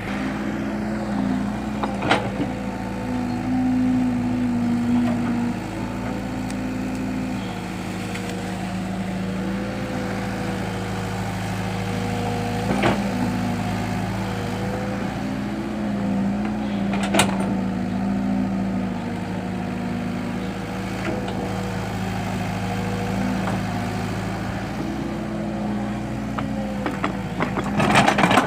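Excavator's diesel engine running steadily, its pitch stepping up and down a little as it works, with a few sharp clanks spread through.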